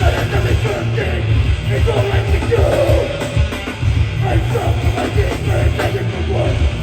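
Loud live hardcore band playing: distorted guitars over heavy bass and pounding drums, with a voice yelling over the music.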